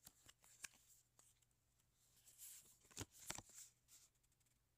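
Faint handling of a stack of Magic: The Gathering cards: scattered soft clicks, then a short sliding rustle with two sharper clicks about three seconds in as a card is moved through the stack.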